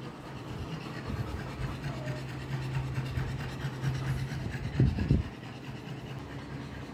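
A boxer dog lying across a lap, panting, while a hand rubs its coat close to the microphone. A brief louder low sound comes about five seconds in.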